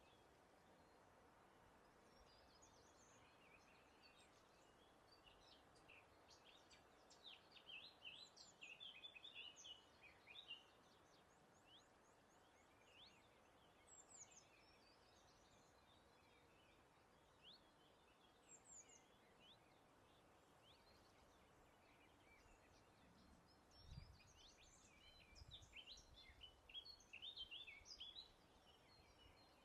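Faint birdsong: two bursts of rapid high chirps and trills, one about a quarter of the way in and one near the end, over a steady soft hiss. A brief low rumble sounds just before the second burst.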